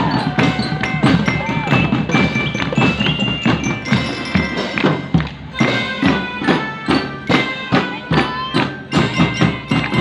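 Drum band playing: a steady rhythm of sharp drum strokes with ringing metal bell notes over them.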